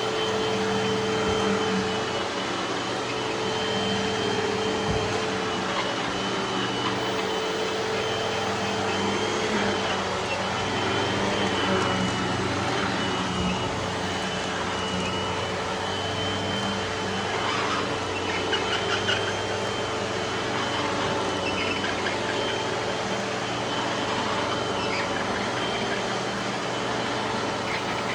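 Panasonic vacuum cleaner running steadily: a rush of air with a steady high whine from the motor.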